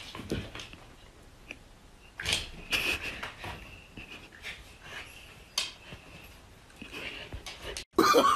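Short, breathy animal noises from a dog and a cat close together: several quick puffs of breath, the loudest a little over two seconds in.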